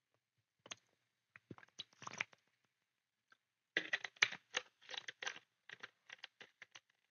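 Faint crinkling and crackling of a plastic water bottle being handled close to the microphone. Scattered short crackles come at first, then a denser run of them in the second half.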